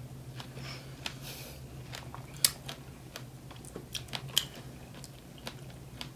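Mouth sounds of people chewing and biting fresh strawberries: scattered soft wet clicks and smacks, over a faint steady low hum.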